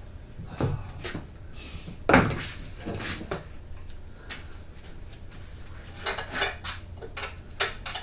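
Metal tools and engine parts being handled: scattered clicks and clinks, with the loudest knock about two seconds in and a quick run of clicks near the end.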